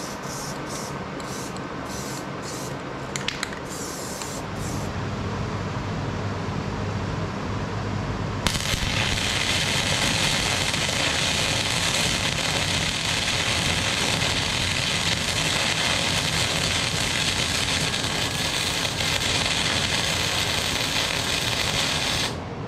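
An aerosol spray-paint can giving a series of short hissing bursts. A few seconds later a Titanium 125 flux-core wire welder strikes an arc and lays a long continuous bead with a steady crackling sizzle, louder than the spraying, stopping abruptly near the end.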